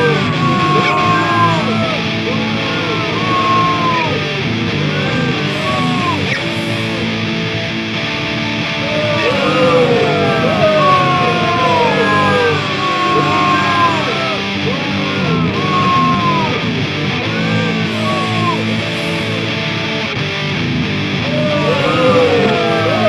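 Electric guitar, a Chinese Les Paul-style copy, played through heavy rock distortion: a continuous run of lead lines with many bent notes sliding up and down in pitch over a dense low rhythm part.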